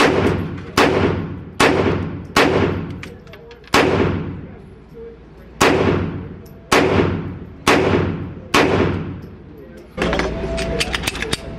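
Nine handgun shots at an unhurried pace, each with a reverberant tail off the walls of an indoor range. After the last shot a steady hum comes in near the end.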